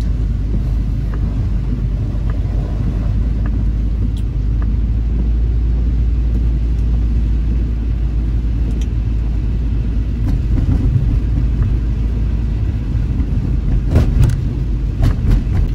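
Steady low rumble of a car driving on a wet road, heard from inside the cabin: engine and tyre noise. A few short knocks near the end, the loudest moment.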